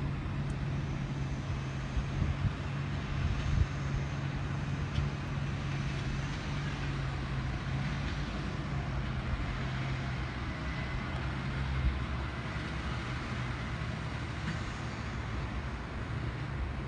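John Deere 8370R tractor's diesel engine running steadily under load while pulling a 12-row strip-till ripper and planter.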